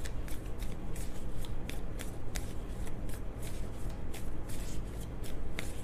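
A tarot deck being shuffled by hand: a continuous run of quick, irregular card clicks and flicks.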